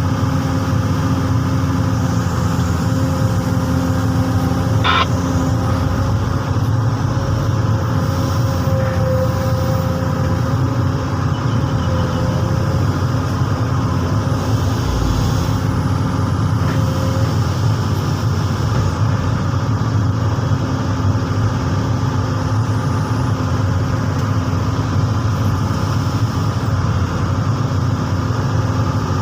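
Komatsu PC200 hydraulic excavator's diesel engine running steadily while it works, an even drone with constant pitched tones over it. A brief sharp sound stands out about five seconds in.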